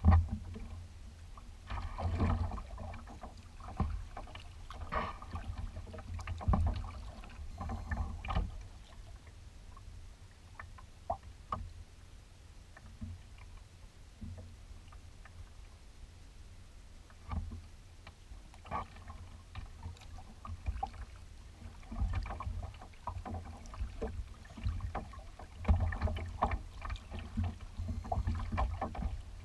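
Kayak out on choppy water: irregular paddle splashes and water slapping against the hull, each with a dull low knock. It is calmer for several seconds in the middle.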